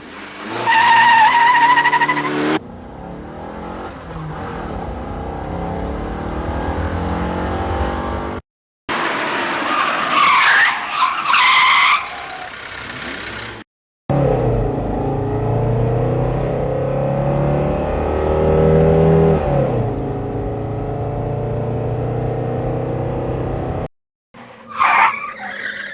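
A string of separate car sound effects with short silences between them: tyres squealing over a running engine, the engine running, two more tyre squeals, then a long stretch of the engine accelerating with its pitch rising and dropping, and a short skid near the end.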